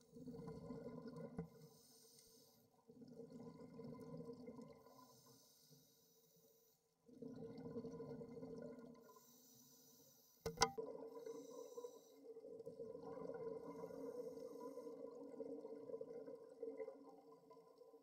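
Scuba diver breathing through a regulator underwater: a hiss on each inhale and a rush of bubbles on each exhale, about four breaths. One sharp click about ten seconds in.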